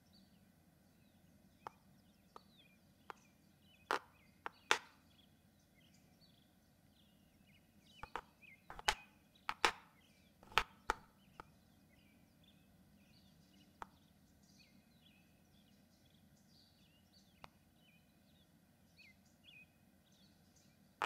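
Quiet room with a scattering of sharp knocks and clicks, bunched in two flurries, a few seconds in and again near the middle, over faint bird chirps.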